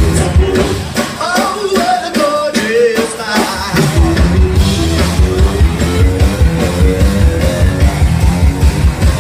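Funk band playing live through a loud festival PA, heard from the crowd: electric guitar, keyboards, baritone sax and singers. Singing carries a stretch with little bass for the first few seconds, then the drums and bass come back in with a steady driving beat about four seconds in.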